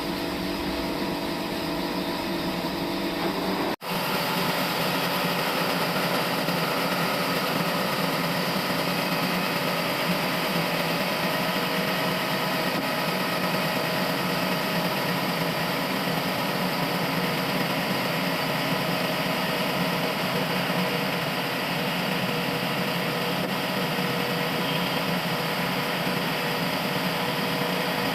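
Sawmill machinery running steadily. The sound breaks off for an instant about four seconds in and resumes thinner and without its deep low end.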